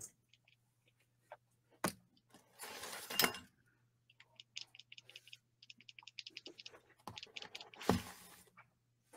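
Pen tip scratching on paper in quick short strokes, with rustles and clicks from handling the page and a knock near the end.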